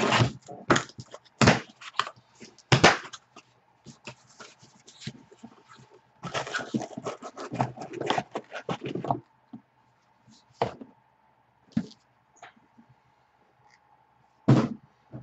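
A cardboard shipping case being cut open with scissors and unpacked: sharp knocks and snips in the first few seconds, a scratchy cardboard rustle in the middle as the case is pulled off, and a few thuds of boxes set down, the loudest near the end.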